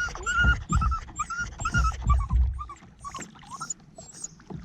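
Dog whining anxiously in quick, short high-pitched whines, about four a second, that fade out about three seconds in. Several low bumps sound under the whines in the first half.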